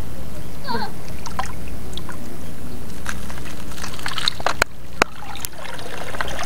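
Shallow seawater sloshing and trickling as people wade and reach into it by hand. Between about four and five and a half seconds in, a few sharp knocks cut through.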